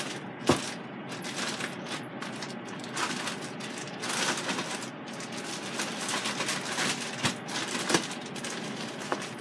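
Plastic bag of flour breading crinkling and rustling as it is handled, with a few sharper clicks and taps.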